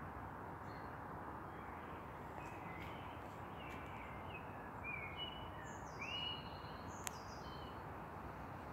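Small birds chirping and whistling in short, quick notes, most of them between about two and a half and seven seconds in, over a steady outdoor background hiss. A single sharp click comes about seven seconds in.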